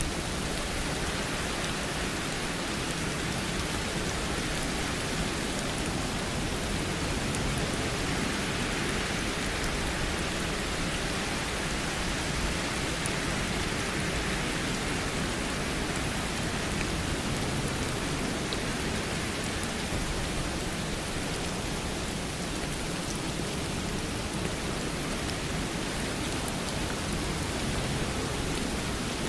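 Steady rain falling, an even hiss of rainfall with faint drop ticks.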